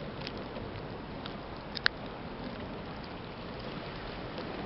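A cat chewing a whole raw fish, with scattered small crunching clicks and one sharper crunch a little under two seconds in, over a steady rushing background.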